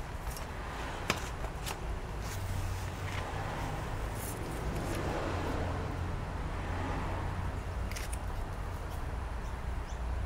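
Steady low room hum with a few light clicks and taps from a tablet and a paper card being handled; the sharpest click comes about a second in.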